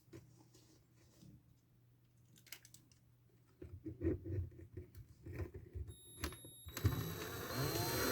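Light clicks and handling of a small latch and screws, then about seven seconds in a power drill starts running, its motor pitch wavering as it drives a screw into the pine drawer.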